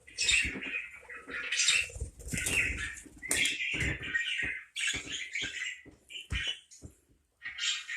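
Parakeets chattering in short, scratchy bursts over and over, with light taps and knocks mixed in. There is a brief lull about seven seconds in.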